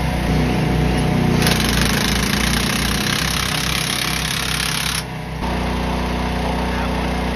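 Engine running steadily, joined about a second and a half in by a loud, harsh hissing rattle that cuts off suddenly near the five-second mark, after which the engine runs on evenly.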